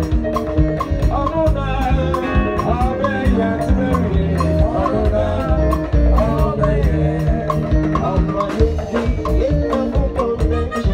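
Live band playing upbeat gospel music: bass, drums and keyboard-type instruments with a steady beat, with some singing.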